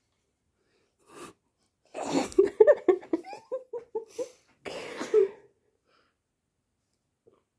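A person laughing in a run of short, quick pitched pulses, with a sharp breath before it and a breathy exhale just after.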